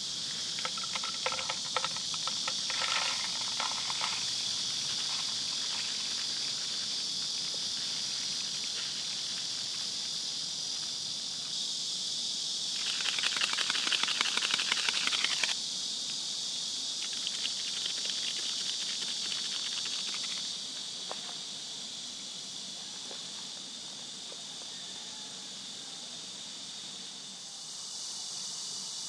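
Steady high-pitched chorus of insects. Over it, crushed dry instant noodles patter into a paper noodle cup for the first few seconds, and a louder crackling rustle lasts about two and a half seconds near the middle.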